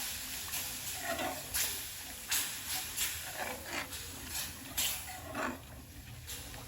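Milk splashed a little at a time into hot ghee-roasted gram flour (besan) in a pan, sizzling and hissing in repeated short bursts that die down near the end.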